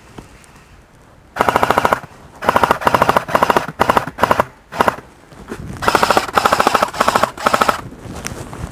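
A&K M249 Para airsoft electric gun firing on full auto: six or seven bursts of fast, evenly spaced shots, short and long, the first about a second and a half in and the longest near the end, lasting about two seconds.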